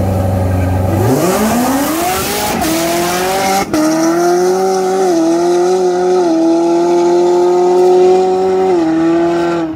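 Shelby GT350 (cat-deleted flat-plane-crank V8) and BMW 340i (turbocharged inline-six with downpipe) launching side by side at full throttle. The engine note climbs steeply about a second in, then holds high with short dips at each upshift as the cars pull away.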